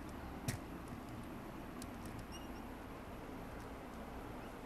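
Plastic handling noise from a Lego Technic loader model as its bucket arm is raised by hand: one sharp click about half a second in, then a few faint clicks and two brief high squeaks, over a steady low hiss.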